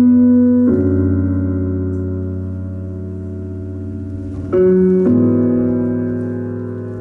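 Slow piano music: sustained chords struck at the start and again about four and a half seconds in, each followed shortly by a second chord, then left to ring and slowly fade.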